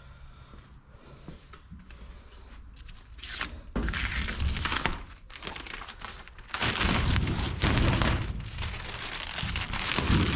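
Protective plastic film being peeled off a stainless steel panel and crinkling, in loud noisy bursts starting about three and a half seconds in after a quieter start.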